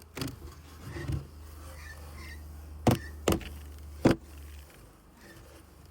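Sharp knocks and clicks of beehive parts being handled, three of them close together in the middle, over a low steady rumble.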